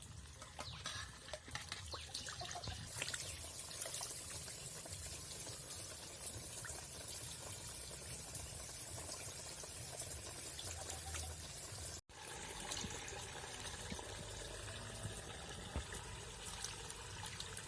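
Water pouring and splashing as pieces of small hilsa fish are washed by hand, with scattered small knocks and clinks.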